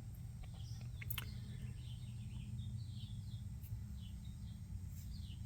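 Faint birds chirping in short falling notes over a steady low hum, with a few light clicks.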